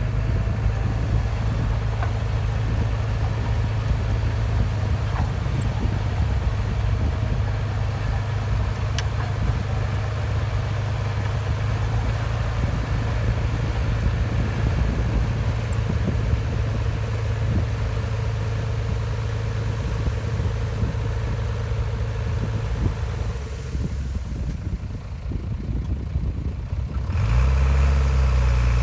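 Diesel engine of a Shantui DH17C2 crawler bulldozer running steadily with a steady whine above it. About three-quarters of the way through it eases off, then comes back louder for a moment near the end.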